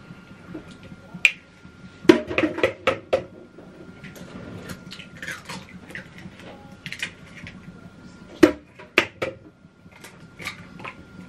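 Eggs being cracked against the rim of a bowl: short sharp knocks, a quick run of them about two seconds in and two more near nine seconds.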